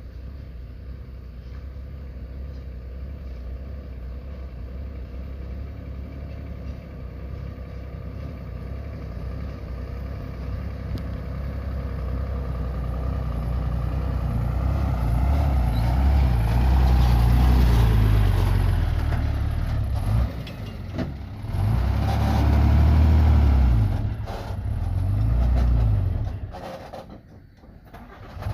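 Heavy diesel engine running, growing steadily louder as the machine draws near, then working hard in loud low surges with brief drops about two-thirds of the way through and again near the end.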